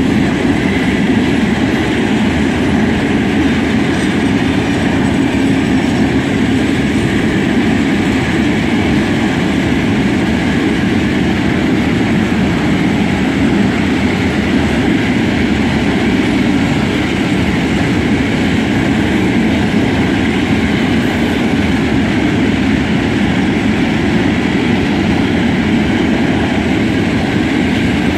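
Long freight train of open wagons loaded with coal rolling past at speed: a steady, loud rumble of steel wheels on the rails.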